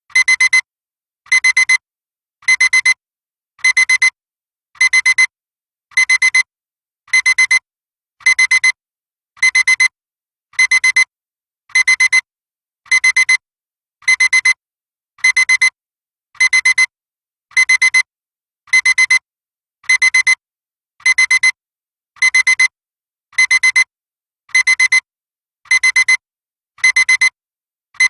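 Classic digital alarm clock beeping: a high, shrill electronic tone in quick clusters of rapid beeps. The clusters repeat evenly, a little more than once a second, without let-up.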